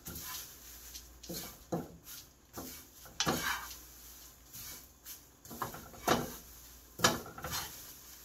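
Wooden spatula and wooden spoon stirring and scraping crumbled seasoned laver (gim) around a frying pan, in irregular scrapes and light knocks about once a second.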